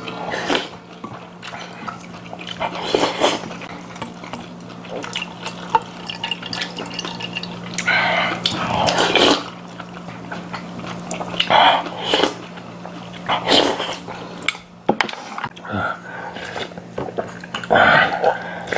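Mukbang eating sounds: noodles and soup being slurped and food chewed, in short irregular bursts, with a steady low hum underneath. Near the end, soup is slurped straight from a steel bowl.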